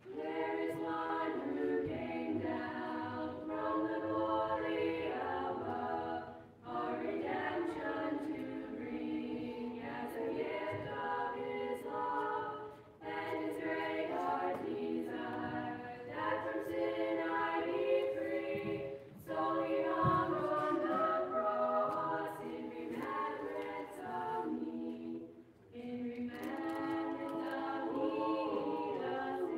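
Mixed choir of boys and girls singing a cappella, in phrases of about six seconds with a short breath between each.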